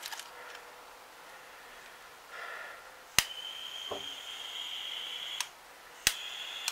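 Aldi Work Zone butane gas soldering iron set up as a hot-air gun: a sharp click about three seconds in, then a steady gas hiss with a high whistling tone. The hiss stops with another click a couple of seconds later, and after a third click half a second on it starts up again.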